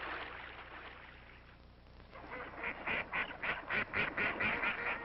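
A hissing rush that fades away over the first two seconds, then waterfowl calling in a rapid, excited run of short quacks, about five a second.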